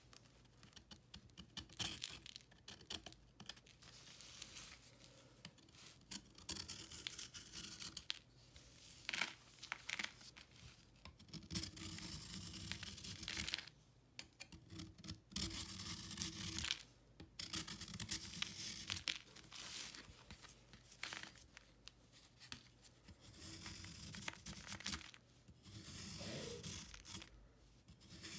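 Snap-off utility knife blade shaving and scraping a solid block of baking soda, chalk and calcium carbonate: a faint series of gritty, crunchy strokes a second or two long, with short pauses and a few sharp clicks between them.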